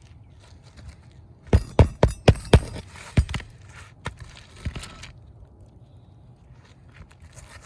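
Hand hammer driving roofing nails back into asphalt shingles: a quick run of five sharp strikes about a second and a half in, then a few more spaced blows.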